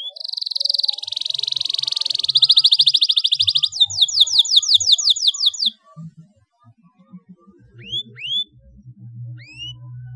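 Domestic canary singing: a fast buzzing trill, then a run of quick down-sweeping notes, about seven a second, that breaks off about six seconds in. A few single rising call notes follow near the end.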